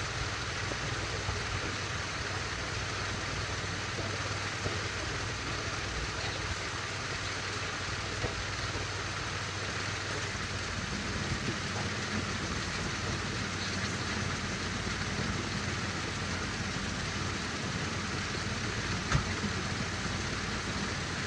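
Oldsmobile 307 V8 idling with the heater blower running on full, a steady low hum under an even fan hiss, with one sharp click near the end. The engine is being run to warm up and purge air from the cooling system after a radiator hose change.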